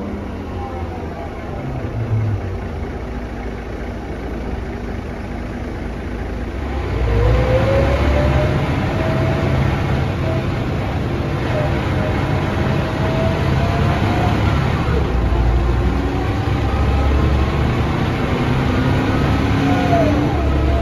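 Mercedes-Benz O405NH city bus heard from inside the cabin, pulling harder from about seven seconds in: the drivetrain noise grows louder and a whine from the ZF automatic gearbox and hub reduction gears rises in pitch, drops back and climbs again with road speed.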